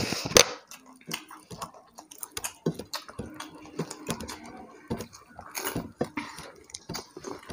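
People eating rice with their hands from plates: scattered small clicks and taps of fingers on the plates, with a sharper tap just after the start, and chewing.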